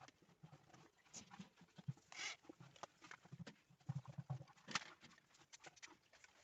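Faint, scattered small clicks and light knocks, with a brief hiss about two seconds in and a cluster of soft low thumps near four seconds.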